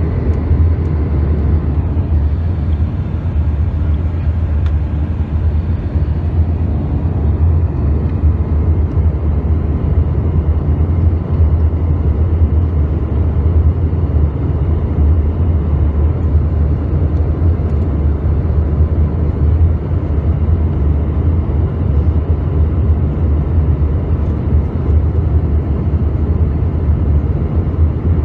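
Steady cabin noise of an Airbus A320 in flight, heard inside the cabin at a window seat over the wing: a continuous deep rumble from the engines and airflow.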